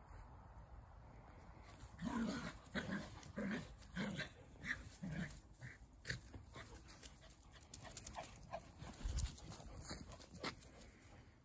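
Dogs playing rough, one of them giving a run of short barks about two a second that start about two seconds in, then softer, sparser ones.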